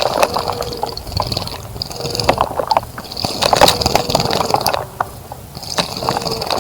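A bird bathing in a shallow bird bath, splashing the water in four short, spattering bouts with brief pauses between them.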